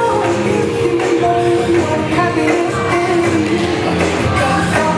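Cheerleading routine music played loud over a sports hall's sound system, with long held notes.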